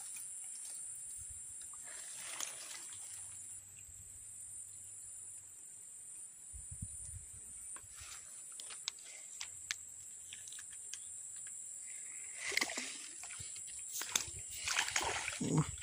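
Quiet outdoor background with a steady high-pitched whine. Scattered light clicks come in partway through, and louder rustling and handling noise near the end as the fishing rod and spinning reel are handled.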